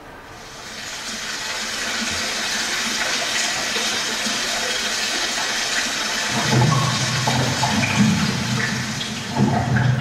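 Rushing water of a waterfall sound effect, swelling up over the first couple of seconds and then steady. Low rumbling joins it about six and a half seconds in.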